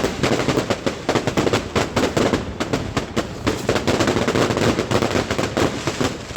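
Fireworks going off in a rapid, continuous crackle of sharp bangs, several a second.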